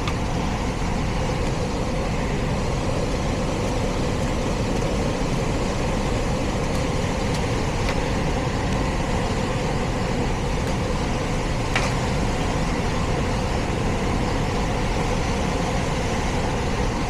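Heat pump system running: a steady rush of blower and airflow with a constant hum. There is one light click about twelve seconds in.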